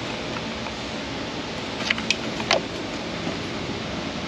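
A few small clicks from a Cadillac Northstar V8's fuel rail being worked loose by hand as its injectors slip out of their O-ring seals, about two seconds in, over a steady background hum.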